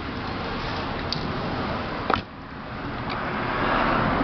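Steady rushing background noise that swells near the end, with a few light clicks of a long screwdriver against the plastic housing of an electric steam iron, the sharpest about two seconds in.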